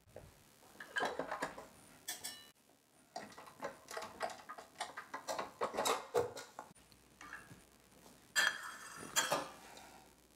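Stainless steel stand-mixer bowl and dough hook clinking and clanking as the bowl is handled and taken off the mixer: a run of irregular metal knocks, loudest near the end.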